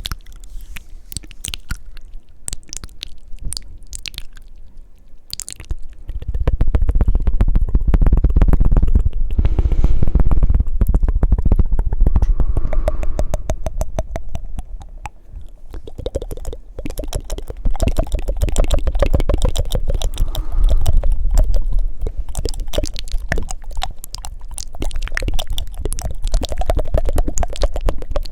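Fast, wet ASMR mouth sounds close to the microphone: rapid tongue flutters and clicks with breaths, a dense run of clicks that grows louder and fuller, with a low rumble, about six seconds in.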